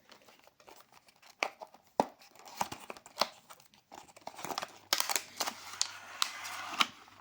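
Packaging being handled and torn open: irregular sharp snaps and clicks. In the second half a longer stretch of crinkling and tearing, like plastic wrap or a mailer bag being ripped.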